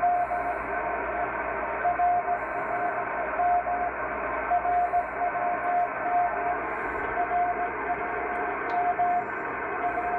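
Shortwave receiver in CW mode picking up the RWM Moscow time signal station on 9996 kHz through an MLA-30 magnetic loop antenna. A steady-pitched beat tone keys on and off in short dashes over a constant bed of band noise and hiss.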